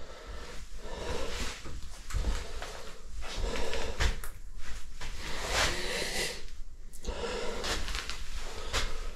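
Someone moving about a cluttered room: rustling, shuffling and light knocks, with close, audible breathing in irregular surges.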